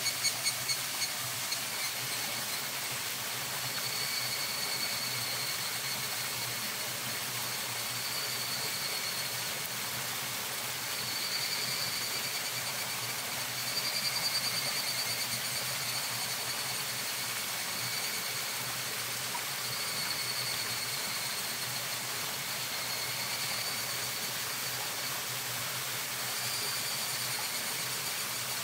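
Eel fillets sizzling on a wire grill over a charcoal fire: a steady hiss. A high trilling call comes and goes behind it.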